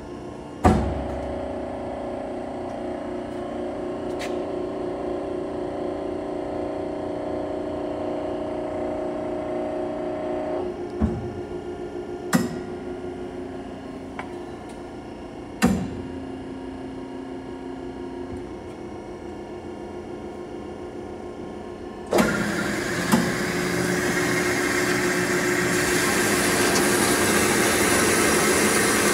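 Kasto SSB-A2-CNC-CC automatic vertical band saw starting with a clunk and running with a steady hum, broken by several more sharp clunks. About 22 seconds in, a louder, noisier sawing sound begins as the blade cuts into steel tubing, growing louder toward the end.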